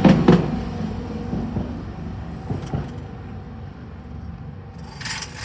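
Tokyu Setagaya Line train wheels clacking over the rail joints at the level crossing: two quick clacks right at the start, then the rumble of the train fades away as it moves off. A short hiss near the end.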